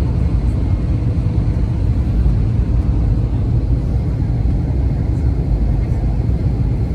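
Steady low rumble of an airliner's engines and rushing air, heard from inside the passenger cabin.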